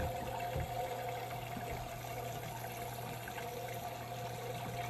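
Water trickling and splashing down through a 3D-printed PVC-style hydroponic tower, pumped up from the bucket by a running submersible pump, with a steady low hum under it. The flow is even, with a couple of faint knocks of hands on the plastic tower.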